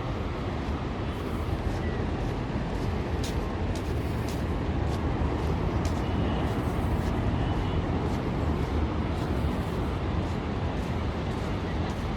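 Steady low rumble of surf breaking along a sandy beach, swelling a little in the middle.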